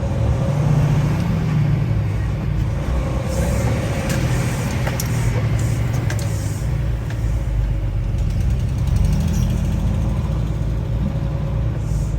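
Semi truck's diesel engine pulling away under load, its pitch climbing and dropping back twice as it works up through the gears.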